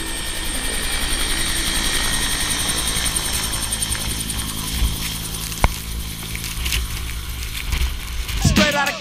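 Helicopter lifting off close overhead and flying away: a steady turbine whine and rotor noise, loudest early and easing off as it goes. Music comes in just before the end.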